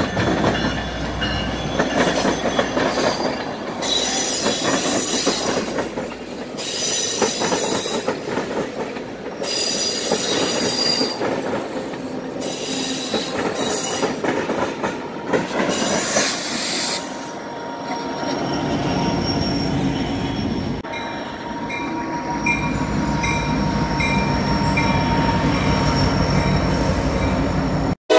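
A passenger train led by a diesel locomotive rolls past over yard tracks and switches. For the first half its wheels squeal in repeated high bursts a second or two apart, over a steady rumble and clatter of wheels on rail. Later the squealing stops and the rumble and clatter run on more evenly.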